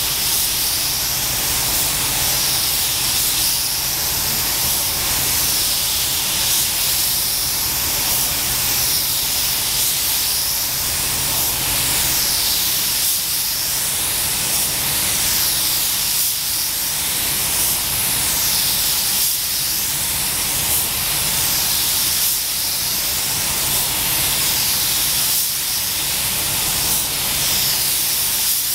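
Compressed-air paint spray gun hissing steadily, the hiss sweeping up and down every second or two, over a low steady hum.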